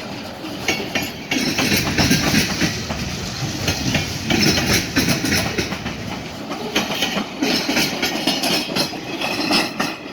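Train rolling past close by: a steady rush of noise with steel wheels clicking and clattering over the rail joints.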